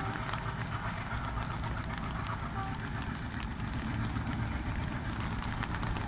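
Steady low rumble of an express train hauled by a WDM-3A diesel locomotive as it pulls away, under a hiss of rain with scattered sharp ticks.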